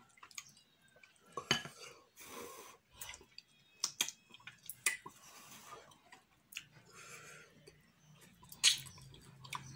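Close wet mouth sounds of eating fufu with slimy ogbono and okra soup by hand: smacking, chewing and slurping the stretchy soup off the fingers, with many sharp lip-smacks, the loudest near the end.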